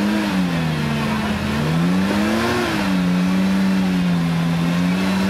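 Mercedes-Benz Unimog 404 engine working as the truck crawls through a muddy trench. The revs dip, climb to a peak about two and a half seconds in, then drop back to a steady run.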